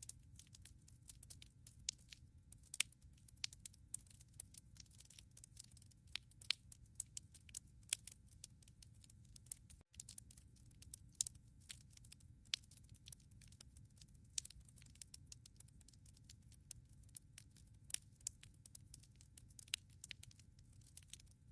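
Wood fire in a fireplace crackling: irregular sharp pops and snaps, several a second, over a steady low rumble of the flames. The sound cuts out for a split second near the middle.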